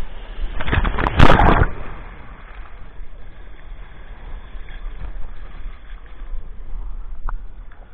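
Wind buffeting the camera's microphone while kiteboarding over choppy water, with a loud rush of board spray about a second in, then steadier wind and water noise. A single short tick near the end.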